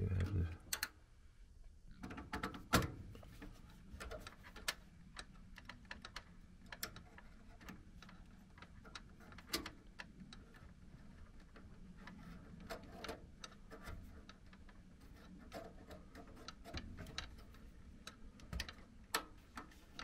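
Irregular small clicks, taps and rustles from wires and plug connectors being handled at a blower motor's control board, with a sharper knock about three seconds in.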